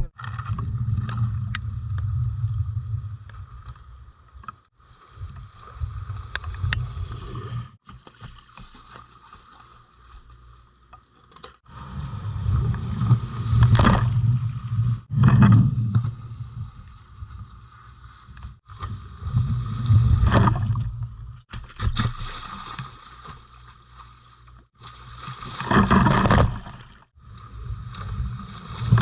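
Rain falling steadily, with loud low rumbles on the microphone that swell and fade every few seconds.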